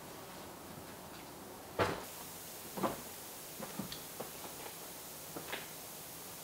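Footsteps on loose rock and scree: irregular knocking and scuffing steps, roughly a second apart, over a faint steady hiss.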